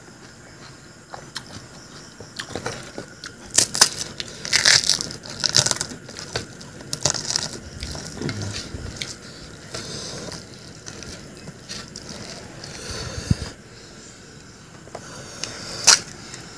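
Crisp pani puri shells crunching during chewing, picked up close by a lapel microphone, mixed with fingers scraping mashed potato and onion filling around a steel bowl. Near the end comes one sharp crack as a finger pokes open a hollow puri shell.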